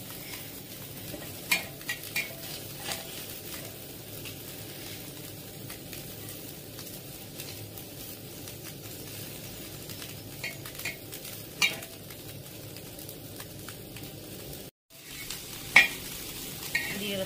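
Small shrimp sizzling steadily as they fry in oil in a blackened pan, with a metal spatula now and then scraping and clinking against the pan. The sound drops out briefly near the end.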